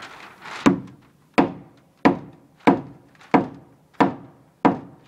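A hammer striking wooden framing in a steady rhythm, seven even blows about one and a half a second apart, each with a short ringing decay, as when driving a nail or knocking a board into place.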